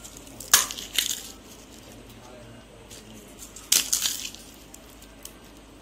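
Crisp fried fuchka shells being broken and crushed by hand. The crackling crunch comes in two bursts about three seconds apart.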